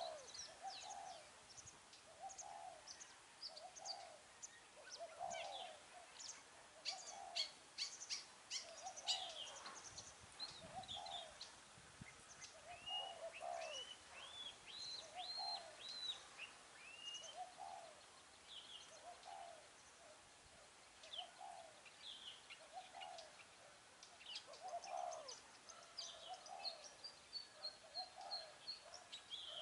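Spotted dove cooing in a steady series of short low coos, about one a second, with small birds chirping and whistling higher up.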